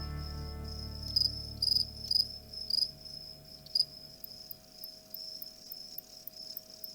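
Male crickets stridulating aggressively at each other: a steady high buzz broken by several louder short chirps in the first four seconds, a warning call to a rival male.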